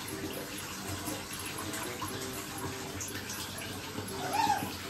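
An Asian small-clawed otter's call: one high squeak that rises and falls, about four seconds in.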